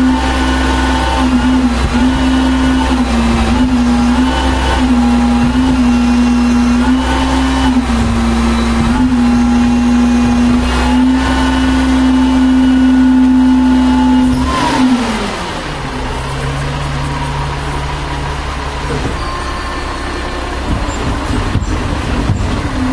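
1996 Volvo WX64 garbage truck's diesel engine running at raised revs with slight wavers, then winding down to a low idle about two-thirds of the way in.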